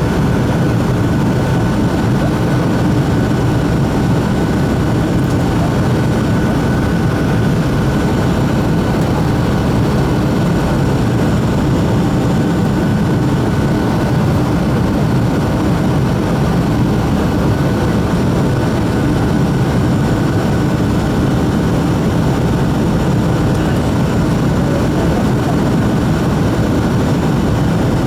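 Boeing 757 jet engines running steadily during the departure climb: a constant rush of engine and air noise with a couple of faint steady whines.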